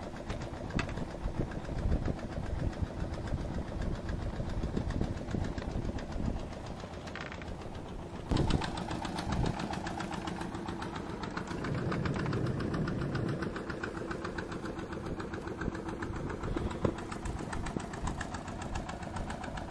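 A small engine running steadily with an even chugging rhythm, getting louder about eight seconds in.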